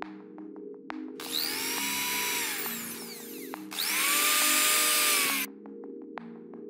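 Electric drill run twice. Each run spins up with a rising whine, holds steady for about two seconds, then winds down; the second run is louder. Background music plays throughout.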